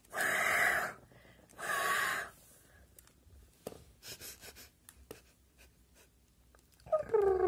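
Two breathy, hissing huffs made with the voice for a toy dragon, each under a second, in the first two seconds. Then faint clicks of the plastic figure being handled, and a short voiced sound near the end.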